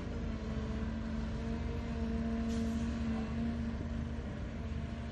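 Heavy diesel dump truck engine running as the loaded truck drives slowly: a steady low rumble with a held hum over it that stops about four seconds in.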